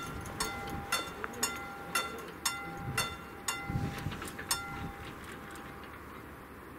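Level crossing warning bell striking about twice a second while the barriers lower. The bell stops about five seconds in, once the barriers are down.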